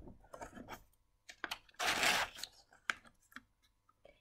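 Picture-book page being turned by hand: a short papery rustle about two seconds in, with a few light clicks and taps of paper and fingers around it.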